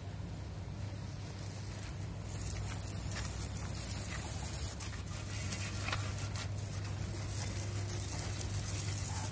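Water hissing out of a hand spray nozzle on a hose fed from a pressurised solar shower tank (a black pipe charged with air to about 28–30 psi), the spray starting about two seconds in and running on steadily, over a steady low hum.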